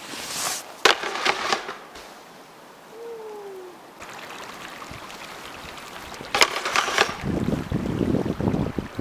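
Snowboard on packed snow: sharp knocks and scraping a second or so in and again between six and seven seconds in, then a rushing slide near the end.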